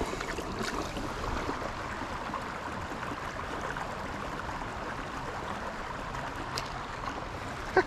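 Steady trickling, bubbling water.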